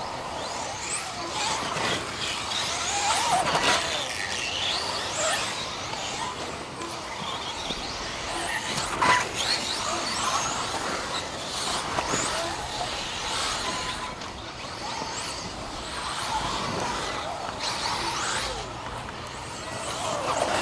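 A pack of 1/10-scale electric off-road RC cars racing: many high motor whines rising and falling as the cars accelerate and brake, over a haze of tyre noise, with a sharp knock about nine seconds in.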